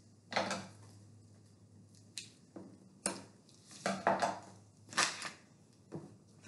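Paintbrushes clinking and tapping against small plastic paint cups, about eight irregular sharp knocks.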